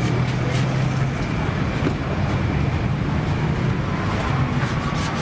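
Steady low rumble of road traffic and running engines, with a few faint clicks.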